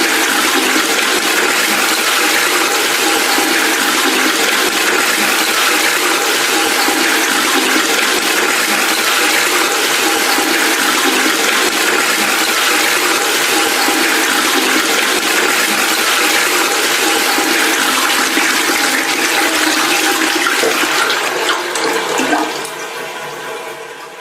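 Water rushing steadily and loudly for over twenty seconds, then fading away over the last two seconds.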